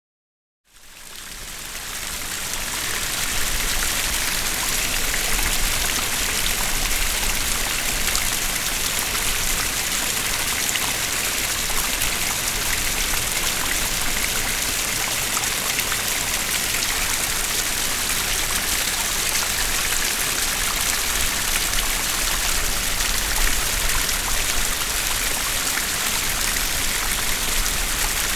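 Two small streams flowing at once, a steady, even rush of running water. It fades in over the first few seconds.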